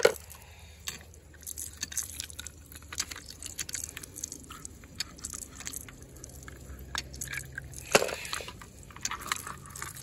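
Hands handling and twisting the solenoid wires of an irrigation valve: a run of small crackles and clicks, with one sharper knock about eight seconds in.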